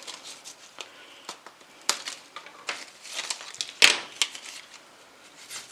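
Salal stems and leaves being handled, stripped and trimmed by hand: soft leafy rustling broken by a few sharp clicks, the loudest about four seconds in.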